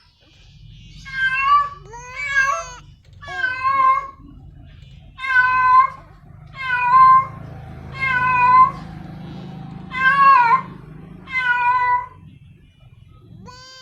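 Female cat in heat calling for a male: eight drawn-out meows, about one every second or so, with a pause near the middle. A low steady rumble runs underneath.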